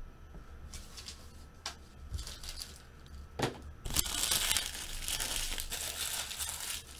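Card-pack wrappers being crumpled and handled by hand: a few short rustles at first, then steady crinkling from about four seconds in.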